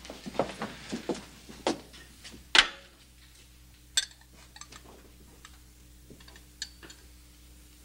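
Footsteps, a handful of knocks with the loudest about two and a half seconds in. Then light clinks of a glass decanter against a small glass as a drink is poured: a sharp clink about four seconds in, and a few smaller ones after it.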